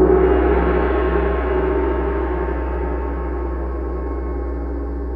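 A gong struck once, ringing with a deep hum under many overtones and slowly dying away.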